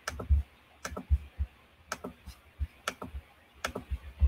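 Scattered clicks of a computer keyboard and mouse being worked, irregular, about one or two a second, each with a low thud.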